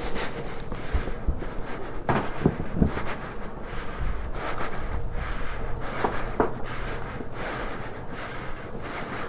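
Wind rumbling on the microphone, with a few faint knocks and scuffs about two and six seconds in.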